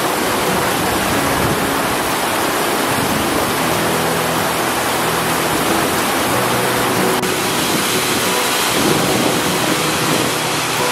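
Fast-flowing mountain stream rushing over rocks: a loud, steady wash of white water.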